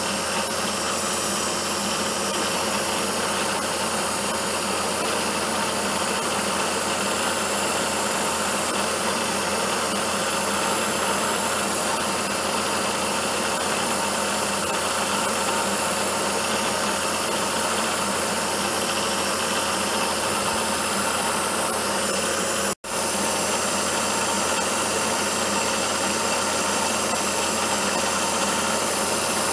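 Milling machine spindle driving a 25/64-inch four-flute carbide end mill through a keyway slot in a tapered bushing, a steady machine hum with a faint whine, mixed with the hiss of the coolant spray. The sound cuts out for an instant about 23 seconds in.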